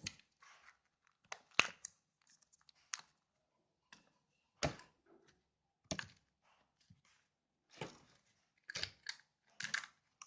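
Small plastic slime containers being handled: irregular sharp clicks and short crackly rustles, about a dozen, with quiet gaps between them.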